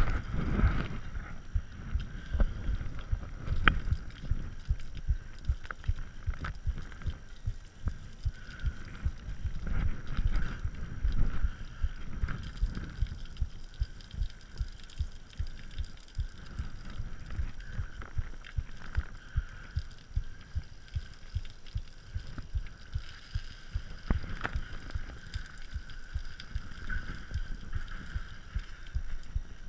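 Mountain bike being washed with a garden hose, water spattering on the frame close to the camera: a run of dull low thumps, two or three a second, over a faint hiss.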